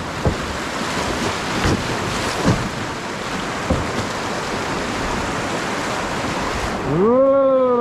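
Rushing whitewater rapids around a raft, a steady hiss of water with a few short, sharp splashes. A loud drawn-out shout with falling pitch comes near the end.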